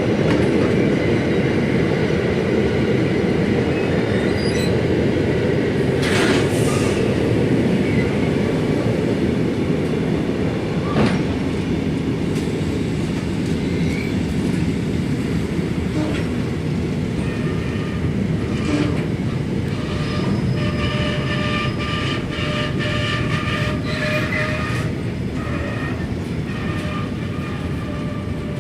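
Freight train passing, its wagons rumbling steadily along the rails with sharp clicks from the wheels over the track. About two-thirds through, steady high-pitched tones join for several seconds.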